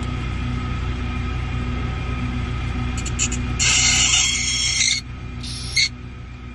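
A small power tool's motor hums steadily while the end of a metal car key blade is shaved down. The grinding is loud and harsh for over a second from about three and a half seconds in, then comes again briefly near six seconds.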